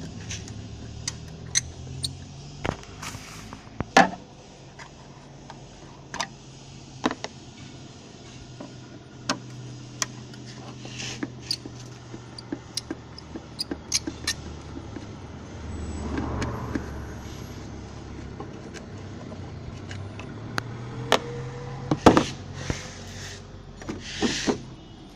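Scattered sharp clicks and small knocks of a screwdriver working the tail-light mounting screws and of the plastic tail-light housing being pulled free, with a few short scraping rustles, over a steady low hum.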